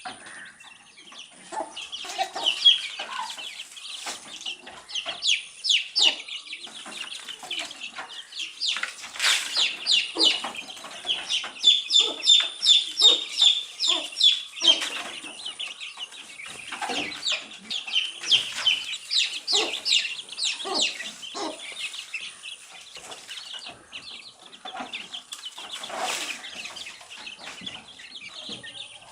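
A brood of baby chicks peeping, many rapid high-pitched cheeps overlapping throughout, busiest in the middle, with a few sharp clicks.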